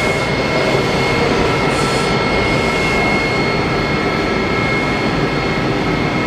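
Washington Metro 7000-series railcar heard from inside as it runs into a station: steady running noise of wheels and motors, with a steady high whine that grows stronger toward the end. There are brief hisses near the start and about two seconds in.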